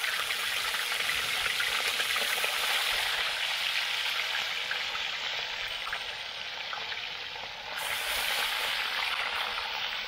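Trout frying in hot oil in a pan over an open fire, sizzling and crackling steadily. It eases slightly past the middle, then comes back full about eight seconds in.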